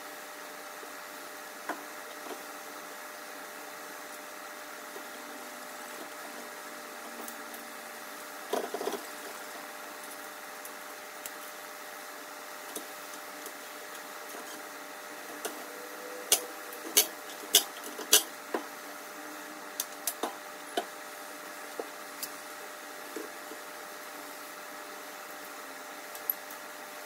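Sharp clicks and clinks of small metal parts and tools being handled and set down on a workbench during assembly, with the strongest cluster of clicks about two-thirds of the way through. A steady mechanical hum runs underneath.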